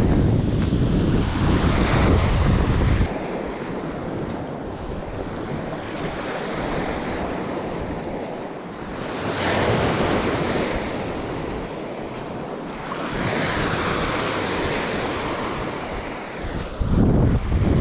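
Small Lake Michigan waves washing up on a sand beach, the surf swelling and easing every few seconds. Wind buffets the microphone for the first three seconds, then drops off.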